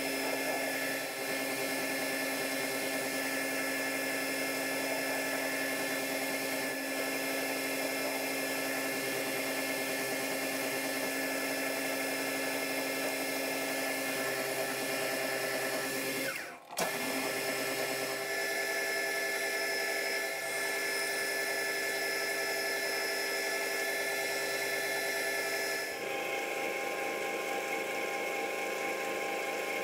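Metal lathe running, its motor and gears giving a steady whine with several fixed tones while it turns a small metal part. The sound drops out briefly about two-thirds of the way through, and its pitch pattern changes near the end.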